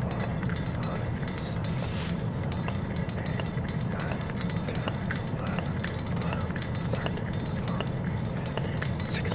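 Hand pump on a Coleman gasoline camp stove being worked stroke after stroke to pressurize the fuel tank, with faint clicks over a steady low rumble.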